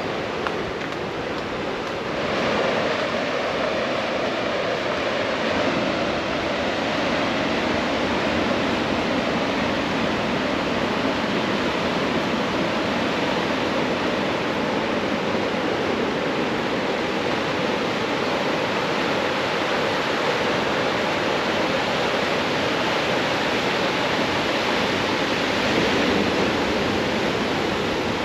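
Steady rushing roar of ocean surf breaking on a beach, growing a little louder about two seconds in.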